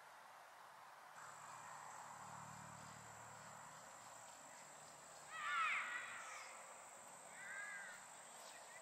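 A bird calling twice: a loud call about five and a half seconds in and a shorter, weaker one about two seconds later, over a steady high-pitched insect trill that starts about a second in.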